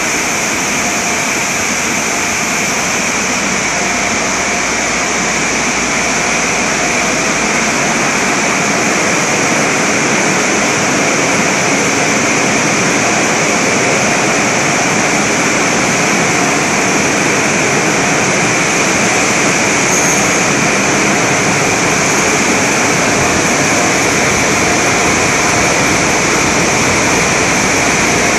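Car wash tunnel dryer blowers running steadily: a loud, even rush of air with a high whine on top, blasting water off the van's body.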